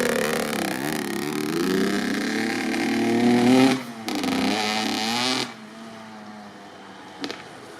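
2007 Honda CR85's two-stroke 85 cc engine, fitted with a Pro Circuit R-304 Shorty silencer, revving up and down with a brief drop about four seconds in. About five and a half seconds in the engine sound falls away suddenly to a low steady background.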